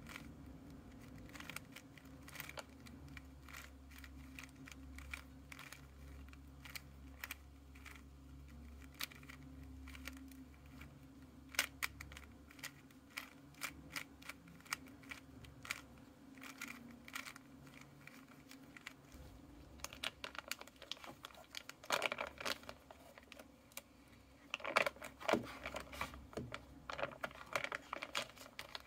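Plastic Rubik's cube being turned by hand: a run of irregular quick clicks and clacks as the layers twist, coming in denser flurries in the last third, with plastic wrapping crinkling near the end.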